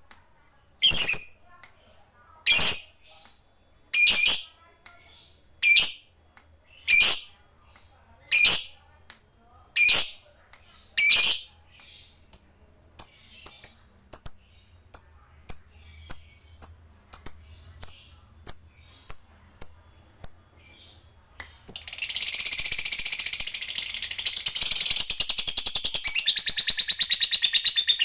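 Masked lovebird calling: loud sharp chirps about every second and a half, then quicker, smaller chirps about twice a second. After about twenty seconds it breaks into a long, unbroken high chatter, the sustained 'ngekek' trill.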